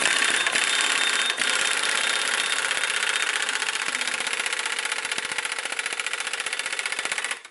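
Pneumatic impact wrench hammering continuously on a gear puller's forcing screw, trying to press off a part that is stuck fast on a tapered shaft. The rapid hammering holds steady, then cuts off abruptly near the end.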